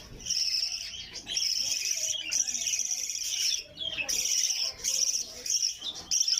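Budgerigars chirping and warbling in dense, nearly continuous high chatter with short breaks.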